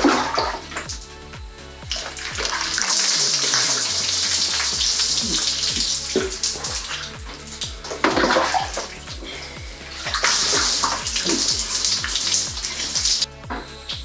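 Shower water pouring and splashing on a person washing, in two long spells, over background music with a steady beat.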